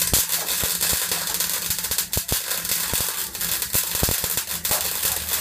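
MIG welder arc crackling continuously as a bead is run on a steel car chassis rail, with occasional sharper pops.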